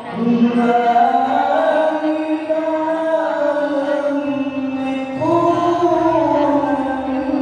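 A man reciting the Quran in the melodic qori style into a microphone, holding long ornamented notes. A new, higher phrase begins about five seconds in.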